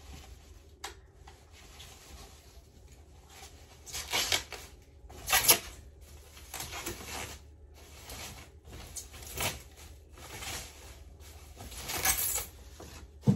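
White packing wrap rustling in several short bursts as it is pulled off a new electric guitar, with one sharp knock near the end.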